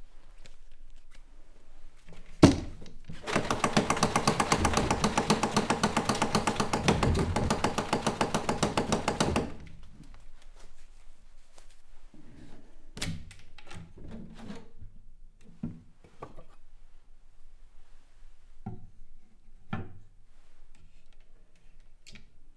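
Wooden aquatint dust box being worked to stir up resin dust: a loud thunk, then about six seconds of rapid, even rattling that stops sharply, followed by a few scattered knocks as the box is handled.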